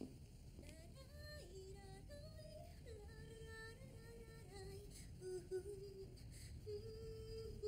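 A woman singing softly, a slow wordless-sounding melody of long held notes that begins about a second in.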